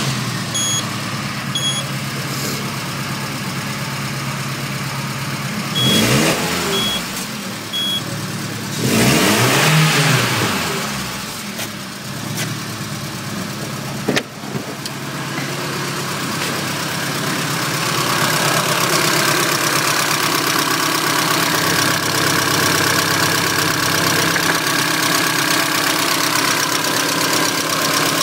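Peugeot 307's 2.0-litre EW10J4 (RFN) four-cylinder petrol engine idling just after a start. It is briefly revved and falls back about six seconds in, and again around ten seconds in. Short electronic beeps come in threes near the start and around seven seconds in, and the engine sounds louder and closer, heard in the engine bay, from about eighteen seconds on.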